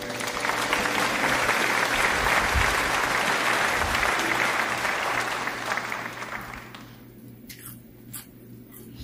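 Applause that swells and then fades out over about six seconds. Near the end come a few soft crunches of salad greens being chewed.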